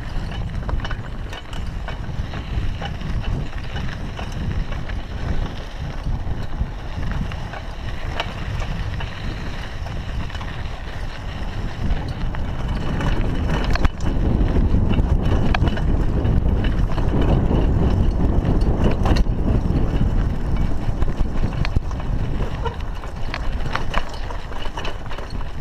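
Raleigh Ascent mountain bike riding over a rough dirt track, its tyres crunching and its frame rattling and clicking over bumps, with wind rumbling on the chest-mounted camera's microphone. It gets louder about halfway through.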